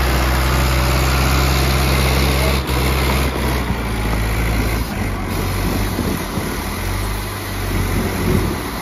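Heavy diesel engines of a farm tractor and a Mercedes-Benz Axor truck running: a steady low drone whose note shifts about five seconds in and wavers near the end.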